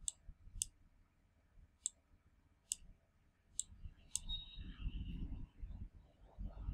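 Computer mouse button clicking six times at uneven intervals, each click placing an anchor point with Illustrator's pen tool, followed by a low rumble.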